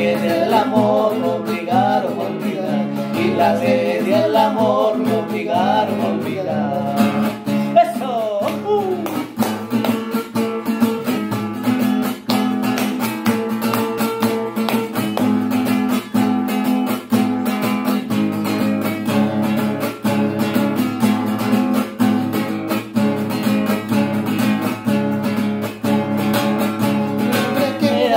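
Acoustic guitar picked and strummed in a steady rhythm through an instrumental passage of a song. A singing voice wavers over the guitar for about the first nine seconds, then drops out, leaving the guitar alone.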